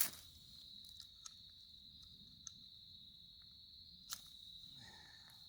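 Crickets chirping in a steady high trill, with a few sharp clicks and snaps over it; the loudest snaps come at the very start and about four seconds in.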